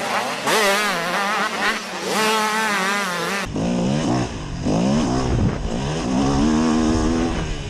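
Motocross bike engines revving, rising and falling in pitch as the throttle opens and closes. The sound changes abruptly about three and a half seconds in, where one clip gives way to another.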